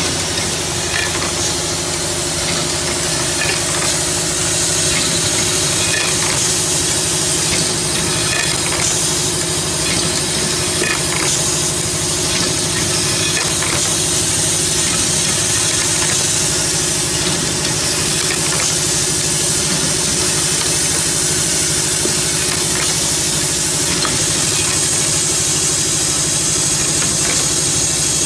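Automatic screw-driving machine running: a steady mechanical hum and hiss, with occasional short clicks as the indexing table and pneumatic units move.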